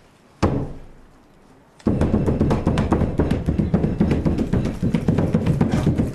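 Percussion music: a single sharp drum stroke about half a second in that rings away, then from about two seconds a dense, continuous rapid drumming.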